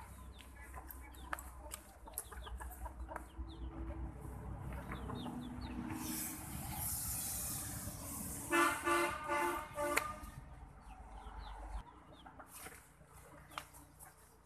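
A rooster calling loudly about eight and a half seconds in: a few quick, rhythmic pulsed notes over about a second and a half. Faint short chirps and clicks run under it.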